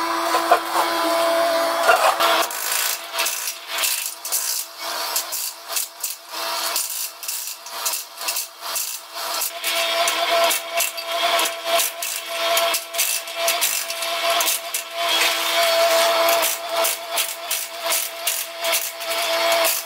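Mini excavator's hydraulic breaker hammering a concrete floor: rapid, uneven runs of chisel strikes over a steady hum from the machine. The first couple of seconds hold a denser scraping noise before the strikes begin.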